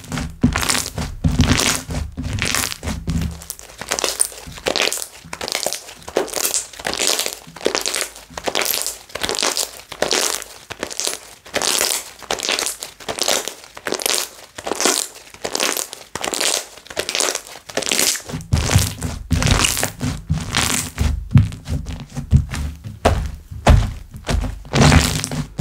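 Handmade slime being squeezed, folded and stretched by hand, with crackling pops of trapped air bubbles about twice a second and dull low thuds as it is pressed down in the first few seconds and again later.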